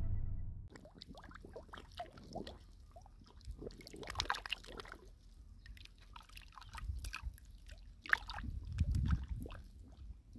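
Fish thrashing in a shallow pool of muddy water: a run of irregular small splashes and sloshes.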